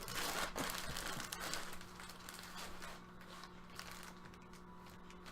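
Crinkling and rustling of packaging as a trading card is handled, louder in the first couple of seconds and softer after, over a faint steady low hum.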